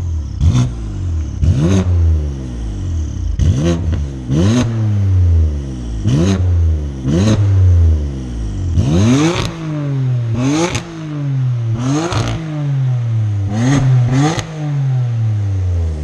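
BMW F80 M3's S55 twin-turbo straight-six, fitted with Active Autowerk downpipes, 3.5-inch mid-pipe and rear exhaust, being blipped about ten times from idle: each rev rises sharply and falls back slowly, with a sharp crack from the exhaust at most of the peaks.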